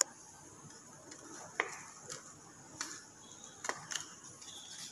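Faint, scattered clicks and light taps from hands handling a cardboard matchbox and a plastic bottle cap, about half a dozen spread irregularly across a few seconds.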